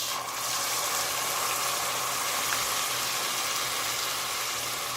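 Chopped tinned tomatoes sizzling in hot oil with fried onions and ginger-garlic paste in a cooking pot: a steady hiss that swells slightly just after the start.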